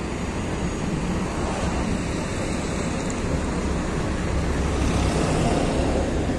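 Cabin noise of a LiAZ 6213.22 articulated city bus on the move: a steady rumble of engine and road, swelling slightly about five seconds in.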